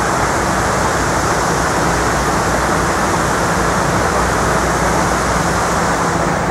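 Steady rushing street noise with a low hum underneath, unbroken throughout.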